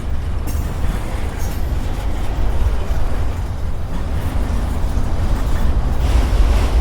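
Norfolk Southern mixed freight train rolling past, a steady rumble.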